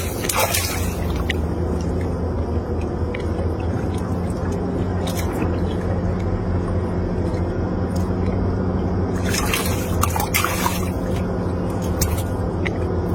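Water splashing and sloshing in a couple of short bursts, over a steady low motor hum.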